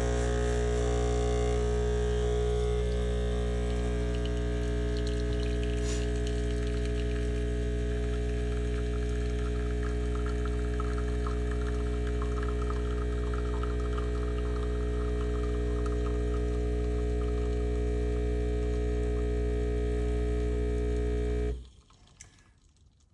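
Espresso machine's pump humming steadily while it pulls a double shot, with espresso trickling into the cup from about eight seconds in. The pump cuts off suddenly near the end as the shot finishes.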